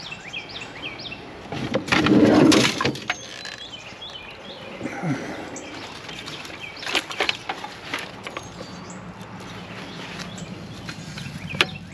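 Small birds chirping, with handling noise from items being rummaged through: a loud rustling clatter about two seconds in and a few sharp clicks later.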